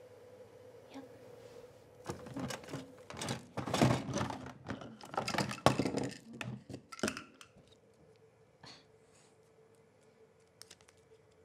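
Small objects clicking and clattering as they are handled and rummaged through at a sewing desk, a busy run of about five seconds that dies down to a few scattered ticks. A faint steady hum lies underneath.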